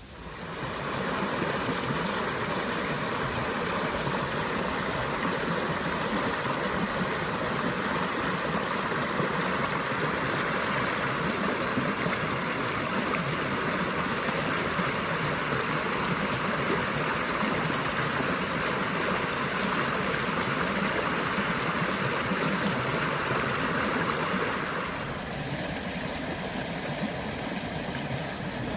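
Steady rush of a flowing stream. It starts suddenly, runs evenly, and turns a little quieter and duller near the end.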